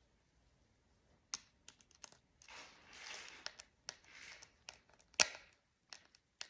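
Small clicks and short scraping rustles of a screw being tightened by hand to fix a laser projector's supporting frame, with a sharper click about five seconds in.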